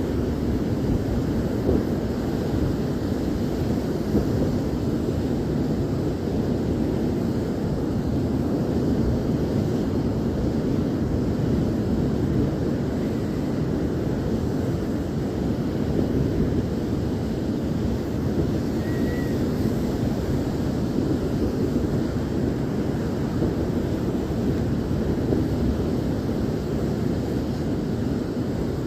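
Steady, even roar of ocean surf mixed with wind buffeting the microphone.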